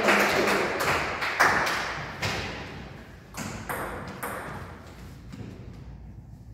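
A table tennis ball making a few scattered clicking bounces between points. The clicks grow fainter over the first few seconds.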